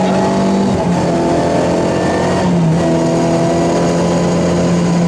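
Rally car's engine running hard under load, heard from inside the cockpit. Its pitch steps down once about halfway through.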